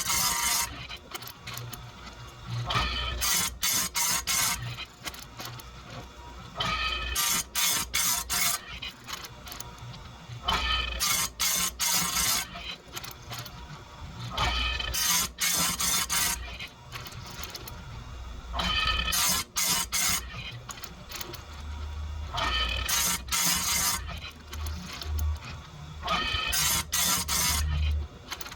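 Electric bench chain grinder sharpening saw-chain cutters one at a time: the spinning wheel grinds into a tooth in a harsh burst of about a second, roughly every four seconds, with the quieter run of the wheel and the chain being indexed between.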